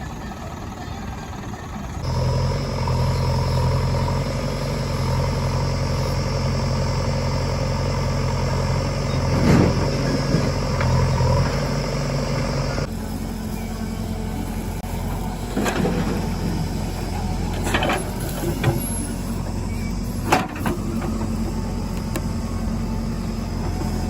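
Diesel engines of a backhoe loader and farm tractors running steadily, with a few short knocks and clanks. The engine sound changes abruptly twice.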